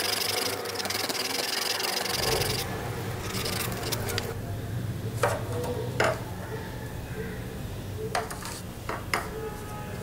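Rusted steel sewing-scissor parts rubbed rapidly back and forth by hand against an abrasive, a dense scratchy rasping for the first two and a half seconds. A low steady hum then comes in, with a few sharp metal clicks as the pieces are handled.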